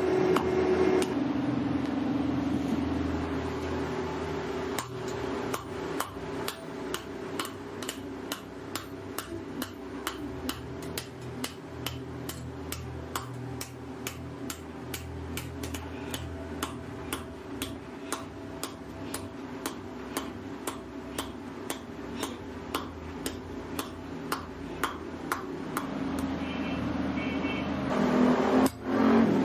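Hand hammer striking metal on a steel anvil block in a steady series of sharp blows, about two a second, over a steady low hum.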